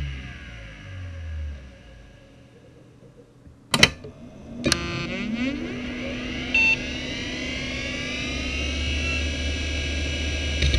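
Conner CP3360 3.5-inch SCSI hard drive, four platters at 4500 rpm, spinning down with a falling whine that fades away. After two sharp clicks it spins back up with a rising whine and settles into a steady whine over a low rumbly hum, with a brief beep during the spin-up and another click near the end.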